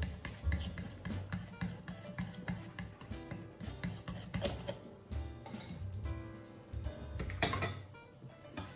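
A metal fork stirring thick batter in a ceramic bowl, with repeated light scrapes and clicks against the bowl. About seven and a half seconds in there is a louder clatter as the fork is set down on a plate.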